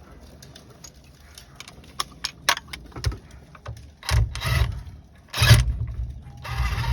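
Metal tool clicks and scrapes as a wrench turns the bolts of a steering wheel puller to draw the steering wheel off its shaft, with two louder scraping clunks about four and five and a half seconds in.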